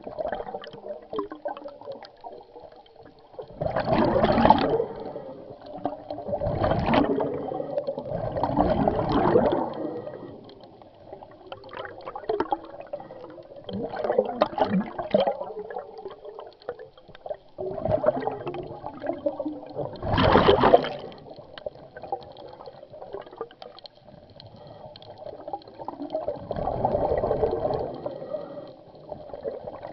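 Scuba diver breathing through a regulator underwater: exhaled bubbles burst out in gurgling rushes every few seconds, over a faint steady hum.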